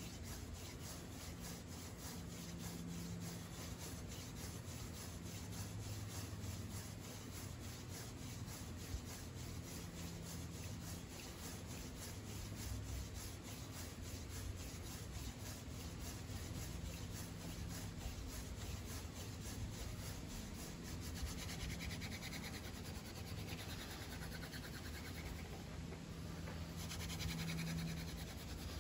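Wooden hand-drill spindle spun back and forth between the palms, grinding into a fireboard cut from a 2x6: a steady dry rubbing of wood on wood from the friction that builds the heat for an ember.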